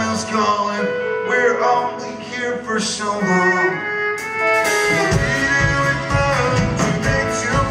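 Live band music: a gliding melodic line over acoustic guitar, with the drums and low end of the full band coming in about five seconds in.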